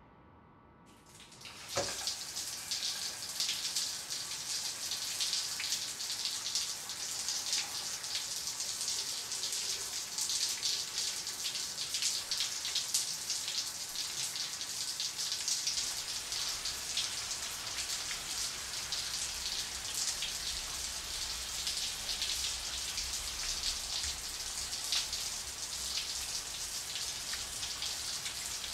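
Shower water spraying onto a person and the tiled floor, a steady hiss of drops that comes in about a second and a half in after a moment of near silence.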